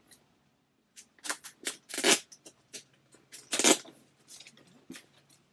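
Packaging on a rolled throw blanket rustling and crinkling as it is worked off by hand, in a string of short bursts, loudest about two seconds and three and a half seconds in.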